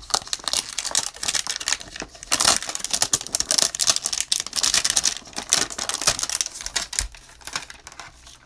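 Cutting and tearing open a shrink-wrapped cardboard hanger box of trading cards. A rapid, uneven run of scratchy clicks, scraping and crinkling wrap.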